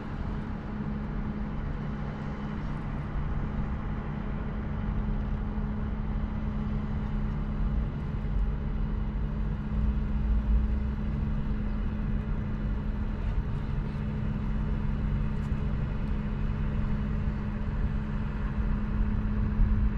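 A steady low motor hum with a low wind rumble under it; the rumble grows a little louder about halfway through.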